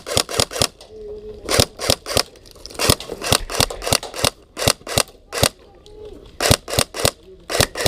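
Airsoft guns firing: an irregular run of sharp pops, several a second, with short quick strings among single shots.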